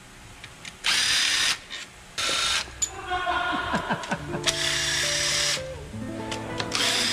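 Cordless power driver spinning bolts on an engine cylinder head through a long extension, in four short bursts about a second or two apart. Background music with a stepping melody comes in about halfway through.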